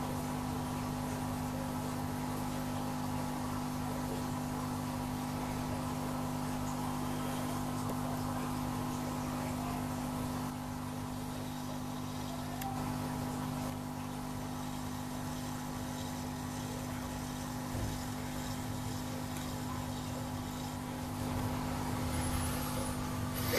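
Steady hum of running aquarium equipment, several steady tones over a low drone.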